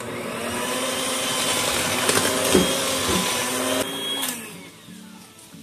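Electric hand mixer running with its beaters in brownie batter in a plastic bowl: a steady motor whine that stops about four seconds in and winds down.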